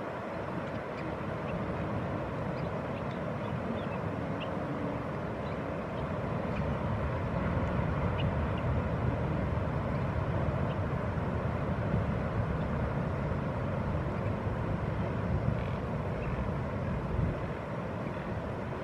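Steady outdoor background rumble with a low, even noise, a little louder in the middle, and a few faint short high-pitched calls scattered through it.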